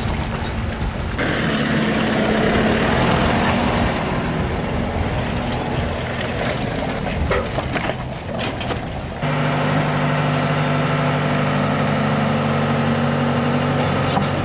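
Diesel tractor engine running steadily while towing a zero-grazer forage wagon along a wet, muddy track. About nine seconds in the sound changes to a steadier, more even engine hum heard from inside the tractor cab.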